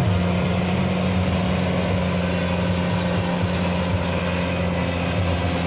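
Off-road jeep's engine running at a steady low note under load as the vehicle crawls up a steep dirt mound.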